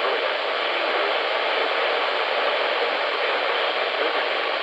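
Steady hiss of radio static from a receiver on a weak signal, with no clear voice or tone coming through.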